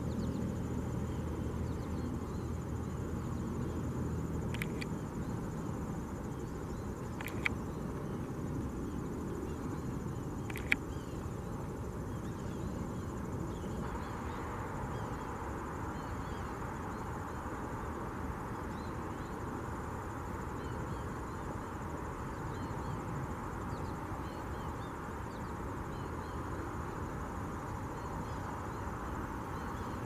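Outdoor background: a steady low rush with faint high chirping throughout, and a low hum that fades out about four seconds in. Three sharp clicks a few seconds apart in the first half, the last two the loudest sounds.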